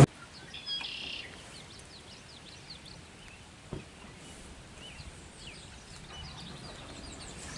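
Small birds chirping: many short, high chirps, with a louder call of several notes about a second in. A single faint click near the middle.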